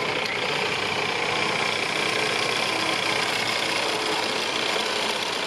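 Mile Marker 7-ton electric winch on the front bumper running, its motor and gear drum whirring steadily as it winds the steel cable, over the Mahindra Thar's DI diesel engine idling.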